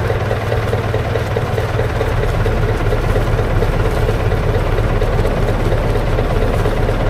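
A boat's engine running steadily, heard loud and close from on board.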